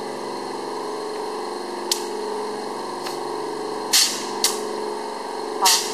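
A machine motor running with a steady hum, broken four times by short, sharp bursts of hiss, the loudest about four seconds in and near the end.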